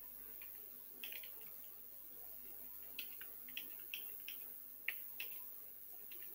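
Faint computer keyboard typing: about ten short, irregularly spaced key clicks.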